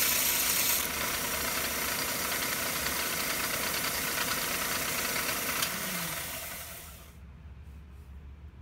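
Half-horsepower belt sander grinding a steel blade with a harsh hiss for about the first second, then running freely with a steady whir. About two-thirds of the way through, a click is followed by the motor winding down with a falling hum, and it coasts to a stop.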